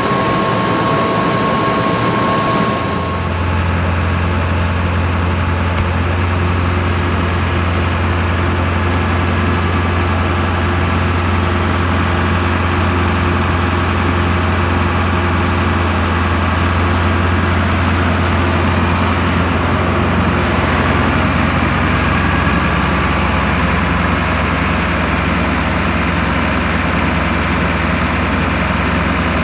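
John Deere six-row cotton picker running steadily, a heavy low engine drone under a mechanical whine. The higher whine tones drop away about three seconds in, leaving the deep drone.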